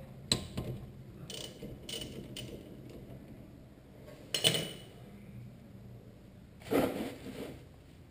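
Clinks, scrapes and knocks of hand work with tools on a car's rear brake caliper and brake line, with two louder handling noises about four and a half seconds and about seven seconds in.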